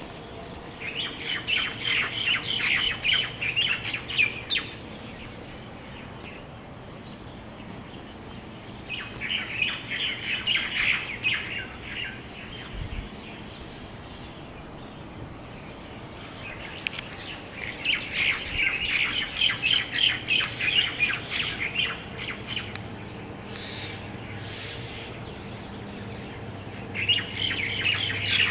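A crowd of roosting birds calling at dusk in four bursts of dense, rapid chatter, each a few seconds long, separated by quieter pauses.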